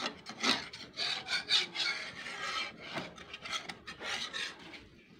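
A spoon or spatula scraping around the bottom of a pan as it stirs a thick ground-rice and coconut-milk batter, giving a rasping scrape about once a second. The batter is stirred without stopping so it doesn't form lumps as it thickens.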